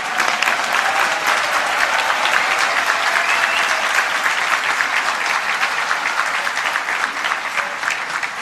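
An audience applauding: a dense, loud round of many hands clapping that holds steady throughout.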